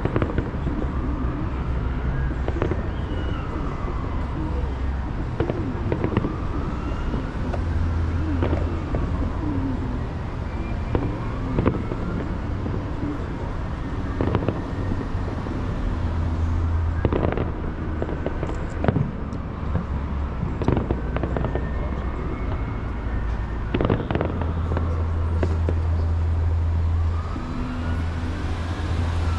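Distant aerial fireworks display: shells bursting in irregular booms and crackles, over a steady low rumble of traffic. An emergency siren wails up and down every few seconds.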